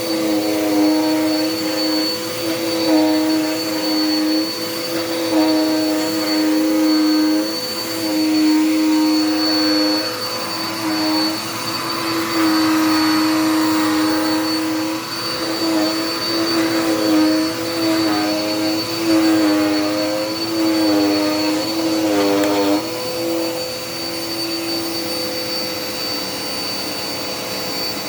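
Dirt Devil Power Max vacuum cleaner running with a steady motor whine. Its pitch dips and recovers every second or so as it works, then holds steady and a little quieter for the last few seconds.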